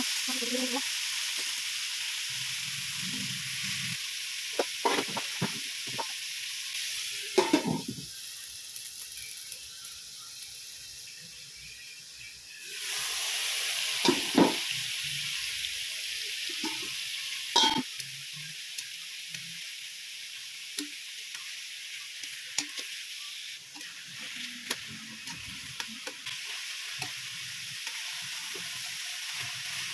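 Marinated pork cubes sizzling as they pan-fry in oil in a wok, with metal tongs clicking against the pan now and then as the pieces are turned. The sizzle gets louder a little before halfway through.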